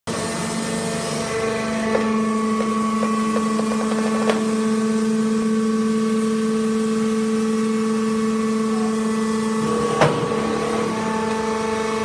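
Hydraulic sawdust baling press running, its electric motor and hydraulic pump giving a steady hum, with a few light clicks early and one sharp knock about ten seconds in.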